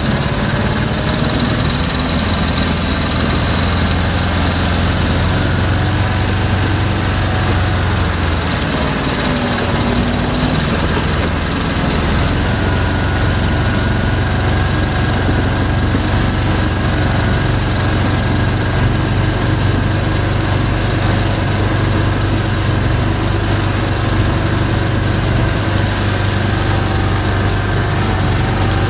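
Off-road vehicle engine running steadily while under way, a continuous low hum that dips briefly about ten seconds in.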